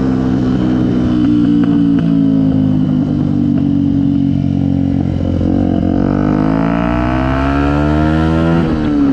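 Yamaha WR 125X's single-cylinder four-stroke engine through an aftermarket BlackWidow exhaust, running steadily, then rising in pitch over about three seconds and dropping back sharply near the end.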